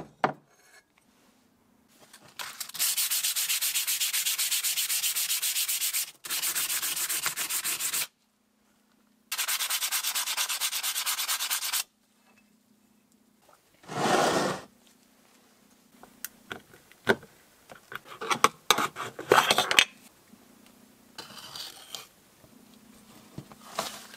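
Rust being stripped from a steel part with a power abrasive: three long spells of dense, finely pulsing hissing noise, then a shorter loud burst about halfway through. Scattered knocks and rubbing follow as the part is handled.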